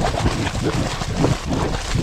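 Hot spring water bubbling and gurgling continuously, a dense run of irregular low pops over a steady hiss.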